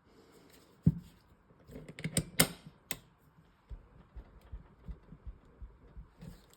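Handling noise of rubber boot grips being pushed and worked onto a Kimber K6 revolver's frame. There is a sharp click about a second in and a cluster of knocks and clicks a little later, followed by soft repeated thumps, about three a second.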